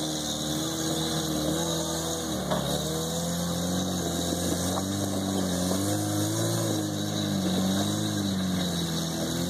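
Propane-fuelled engine of a custom long-wheelbase Suzuki Samurai rock crawler, running at low revs and rising and falling in pitch several times as the truck crawls over rock ledges.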